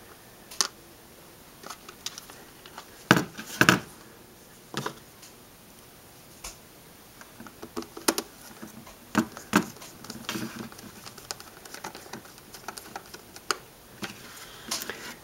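Scattered plastic clicks and knocks of a handheld multimeter's back cover and tilt stand being handled and snapped back into place, the loudest cluster about three seconds in.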